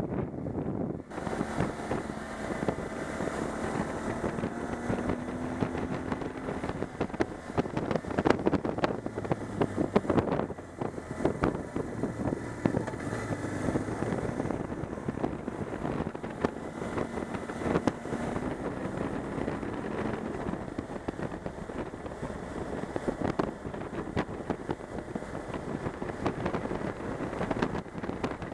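Motorcycle on the move: wind buffeting the bike-mounted camera microphone over the engine running, whose note rises and falls a little.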